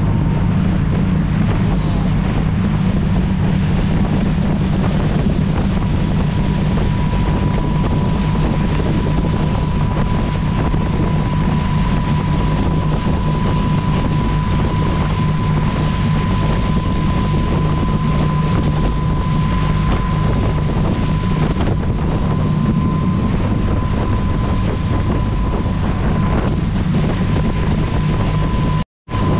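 Tour boat running at speed, with a steady low engine drone and a thin steady whine, under wind buffeting the microphone and the rush of the wake. The sound cuts out briefly near the end.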